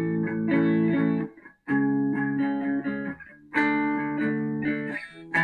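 Guitar strummed with a pick: four chords, one about every two seconds, each left to ring before the next. It is picked up through a Bluetooth lavalier mic during a sound check.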